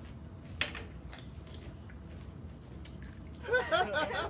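Close-up chewing of crisp pani puri, with a couple of sharp crunches in the first second or so. A voice starts near the end.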